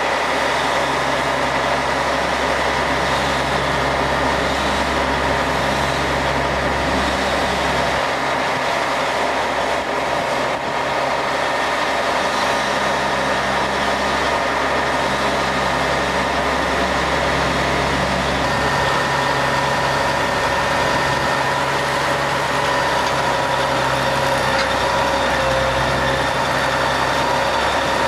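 An engine running steadily, with a constant hum and level that hardly change.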